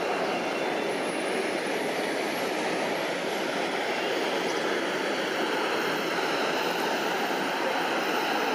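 Steady jet engine noise of a twin-engine narrow-body airliner on final approach, flaring and touching down on the runway.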